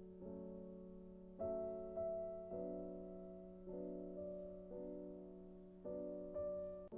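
Background piano music: soft notes and chords struck about once a second, each fading before the next.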